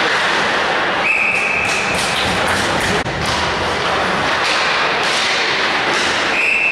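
Ice hockey game sound: steady rink noise with thuds and taps of sticks, puck and skates. A short, high, steady whistle tone sounds about a second in and again near the end.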